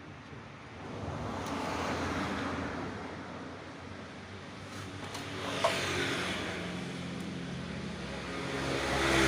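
Passing road traffic: three motor vehicles go by one after another, each engine growing louder and then fading.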